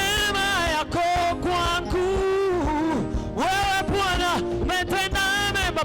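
Swahili gospel praise music: a voice sings long, wavering held notes over a steady band accompaniment.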